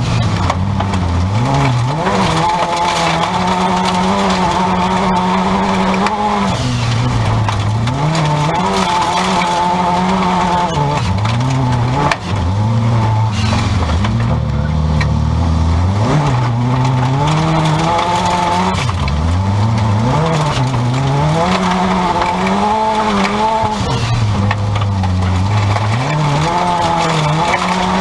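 Turbocharged 16-valve Seat Ibiza stock-car engine heard from inside the cabin, racing hard: the revs climb and drop again and again as the driver accelerates, shifts and lifts for the corners, over a steady noise of tyres running on dirt.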